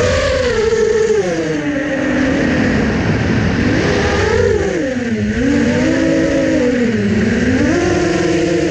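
6-inch FPV quadcopter's brushless motors and two-blade props whining, the pitch swinging up and down with the throttle: rising at the start, dipping twice in the middle, and rising again near the end.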